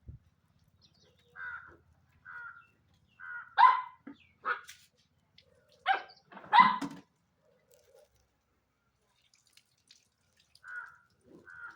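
Puppy barking and yipping in short, separate calls. The loudest barks come a few seconds in, and quieter yips follow near the end.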